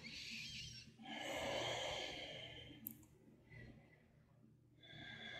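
A woman breathing audibly: a slow breath out lasting about two seconds, a faint click about three seconds in, then a quiet breath in building near the end.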